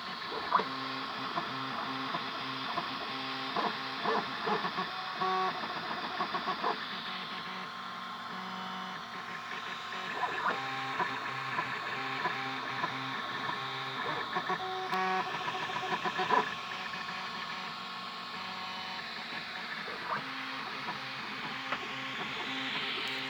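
Stepper motors of an Ashtar K 3D printer driving its moving axes: steady whining tones that jump in pitch as the moves change, over a fan-like hiss, with occasional short clicks.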